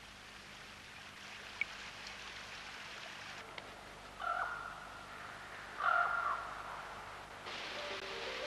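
A crow caws twice, each call about half a second long, over a steady hiss of rain and running water; the water grows louder near the end.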